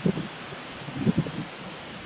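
Honey bees buzzing at a nuc hive entrance: two brief buzzes, right at the start and about a second in, as bees fly close past the microphone, over a steady hiss.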